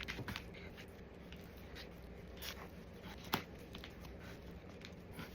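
Small handling sounds of someone working with raw chicken packaging and freezer bags: scattered light clicks and rustles, with one sharper click just over three seconds in, over a steady low hum.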